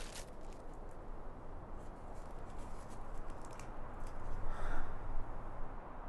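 Light handling noises: a few sharp clicks at the start, scattered small ticks and rustles, and a brief louder rustle near the end, over a steady low background hiss.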